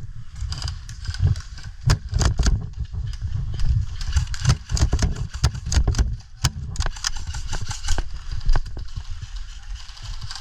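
Footsteps crunching on dirt and gravel, an irregular run of sharp steps over a steady low rumble.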